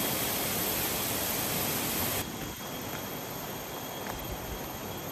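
Steady rushing hiss of a river running below in the jungle valley; about two seconds in it cuts abruptly to a quieter, thinner hiss.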